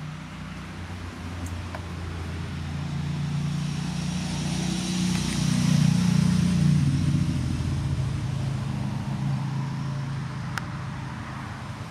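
A motor vehicle's engine running as it passes, swelling to its loudest about six seconds in and then fading.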